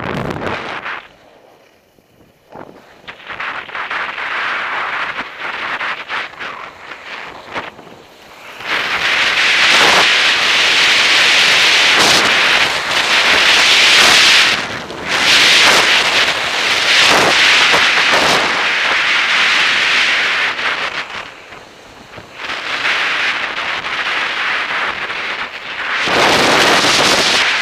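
Wind rushing over a ski helmet camera's microphone, with skis hissing and scraping over a groomed piste during a downhill run. It is quiet for a moment near the start, then turns loud and hissy from about a third of the way in, with brief dips.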